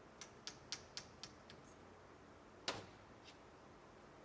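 Faint, evenly spaced metallic clicks, about four a second and fading, then one sharper click near the middle, as the cross pin retaining bolt is run into a Yukon Dura Grip limited-slip differential case.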